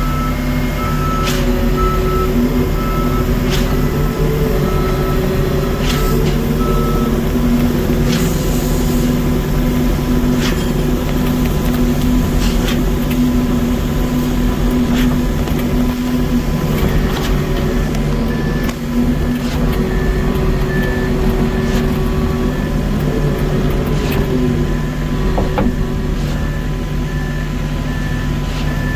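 Heavy truck engine running steadily, with a back-up alarm beeping at an even pace for the first several seconds and again, at a higher pitch, from a little past halfway on. Scattered short knocks and clicks sound over it.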